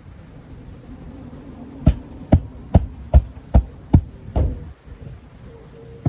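A futon beater striking a futon, seven dull heavy thumps at a steady pace of about two and a half a second, heard close with the microphone lying on the futon.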